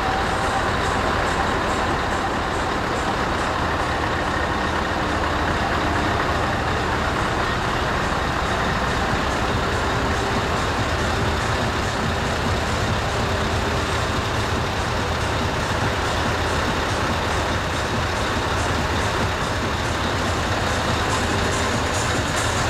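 Steady rumble of a heavy truck engine running, mixed into a dense, unchanging din.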